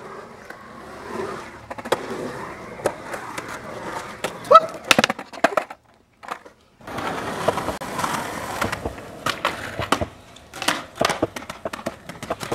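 Skateboard wheels rolling on concrete with a steady rumble, broken by clacks and slaps of the board hitting the ground, the loudest about four and a half seconds in. The sound cuts out briefly about halfway, then rolling and clacks go on.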